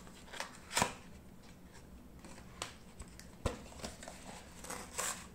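Phone case packaging being handled and opened: scattered light clicks and paper-and-plastic rustles, the sharpest just under a second in.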